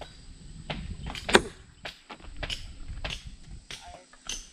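Repeated chopping strikes, a blade hitting wood, about one every half second to second, with one much louder blow about a second and a half in.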